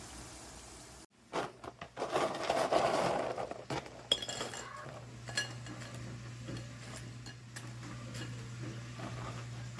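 Kitchen utensils clattering and clinking against pots and dishes, with a burst of scraping clatter early and a sharp metallic clink about four seconds in. A steady low hum comes in about halfway through.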